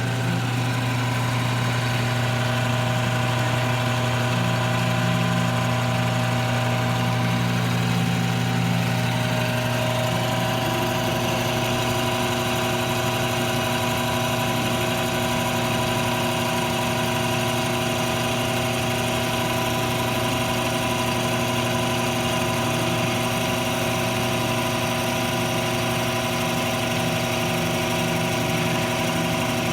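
Metal lathe running steadily with a constant motor and gear hum while turning down a red oak bar. A higher hiss grows a little stronger about ten seconds in.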